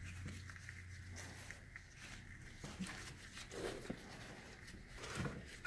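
Faint handling noises as an old tie rod end is spun out of its tie rod by hand: gloved hands rubbing and small metal ticks from the threads. A low steady hum is there for about the first second.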